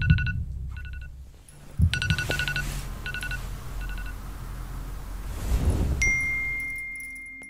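Smartphone alarm ringing: groups of quick, high beeps at a few set pitches, coming in bursts and stopping about four seconds in, over a low rumble that swells and fades. About six seconds in a single steady high tone starts and holds.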